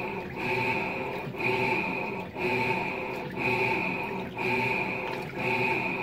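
LG top-load washing machine agitating in its wash cycle: the drive motor turns the pulsator back and forth about once a second, each stroke a whine over sloshing water with a short pause between. It is washing with the lid open because the lid sensor is now held closed by a glued-on magnet.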